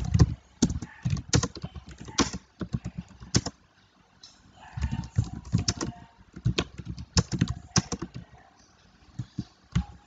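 Typing on a computer keyboard: quick runs of key clicks, with a short pause about three and a half seconds in.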